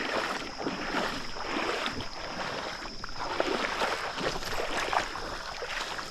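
Shallow creek water splashing and sloshing in uneven bursts as someone wades through it.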